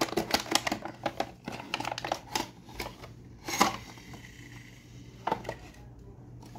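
Plastic blister pack and card toy box crinkling and clicking as they are handled and opened: a dense run of small clicks over the first three seconds, then a few sharper separate clicks as a plastic toy is turned over in the hands.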